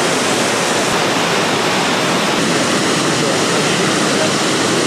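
Waterfall: a steady rush of falling water, loud and unbroken.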